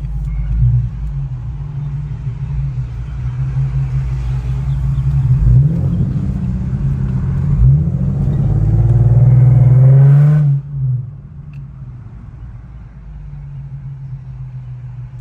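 Infiniti Q50's 3.7-litre V6 with test pipes in place of the catalytic converters, pulling hard under acceleration. Its pitch climbs in several sweeps, loudest just before it cuts back about ten seconds in, then it runs quietly.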